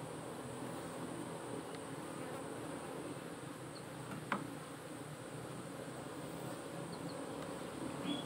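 Asian honeybees (Apis cerana) buzzing steadily over an opened hive box as its comb frames are worked, with one sharp click about four seconds in.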